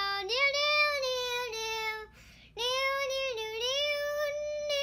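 A high-pitched voice sings long, drawn-out notes that slide up and down in pitch, in two phrases with a short break about two seconds in.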